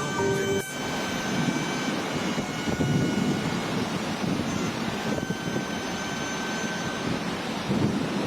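Strong storm wind blowing in a steady, loud rushing noise that rises and falls in gusts.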